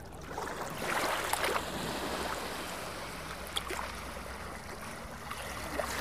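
Small waves lapping onto a sandy shore: one wash swells about a second in and slowly ebbs, and the next wave arrives near the end.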